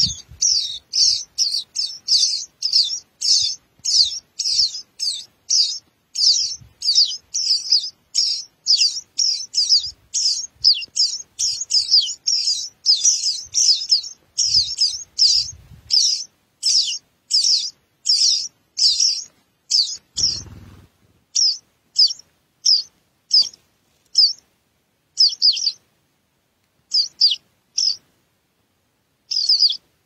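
Songbird nestlings begging for food at the nest: a rapid run of short, high-pitched cheeps, about two a second, that thins to scattered calls after about twenty seconds.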